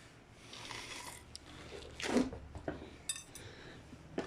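Metal pump parts and hand tools clinking and scraping as the pump is worked apart, with a louder knock about two seconds in and sharp clicks near the end.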